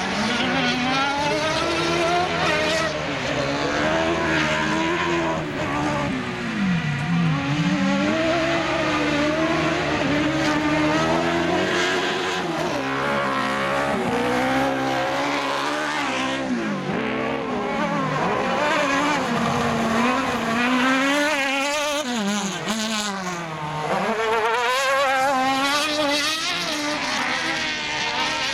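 Autocross race car engines running hard on a dirt track, the pitch climbing and dropping again and again as the cars accelerate, lift off and change gear.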